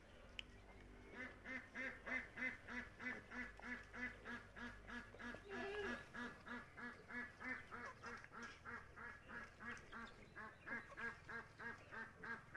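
Domestic ducks quacking in a fast, even run of about three to four quacks a second, with a brief lower, wavering call from another bird about halfway through.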